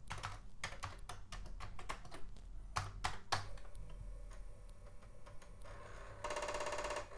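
Keys being typed on a Commodore 64C keyboard: a run of separate clicks. Near the end comes a short, evenly repeating mechanical buzz lasting under a second, which then stops.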